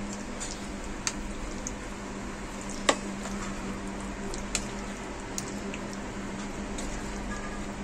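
A metal spoon stirring chunks of chicken through a thick yogurt-and-cream marinade in a bowl: wet squishing, with scattered light clicks of the spoon against the bowl and one sharper knock about three seconds in.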